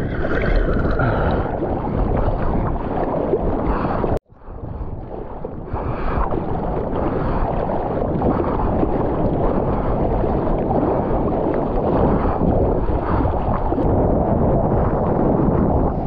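Seawater splashing and rushing close on the microphone as a surfer paddles through the surf. Wind buffets the microphone. The sound cuts out for a moment about four seconds in.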